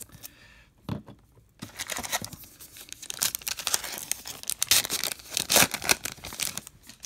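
A Topps Heritage Minor League baseball card pack being torn open by hand, its wrapper crinkling. A dense run of crackling starts about a second and a half in and is loudest near the end.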